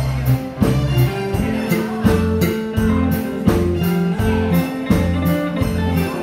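Live band music with electric guitars and bass over a steady beat of about two strokes a second.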